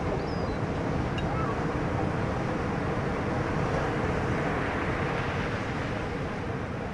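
Boat's engine running steadily at sea, with a constant rush of wind and water.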